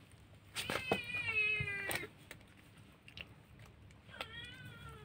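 A cat meowing twice: a long, drawn-out meow about half a second in that falls slightly in pitch, and a shorter, fainter meow about four seconds in.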